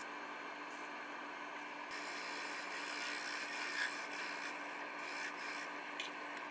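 Wood lathe running with a steady hum while abrasive paper rubs on the small spinning flame-shaped turning. About two seconds in, a turning chisel takes over, cutting the spinning piece with a louder scraping hiss.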